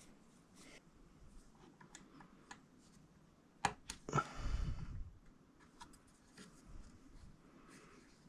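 Faint metal clicks and taps of a small Allen key working a bolt on a Bambu Lab A1 Mini 3D printer, with a sharper clack and about a second of louder rustling and a low thump around four seconds in.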